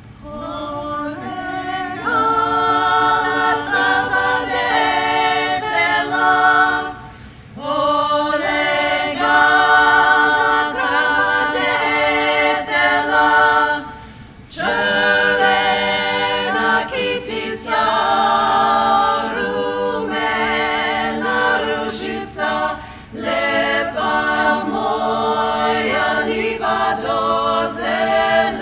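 Background music: a women's vocal ensemble singing a Croatian folk song a cappella in close harmony, held chords in phrases of several seconds with short pauses between them.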